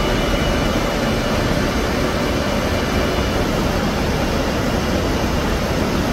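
Whitewater of a small waterfall in a stream rushing steadily, an even, unbroken noise.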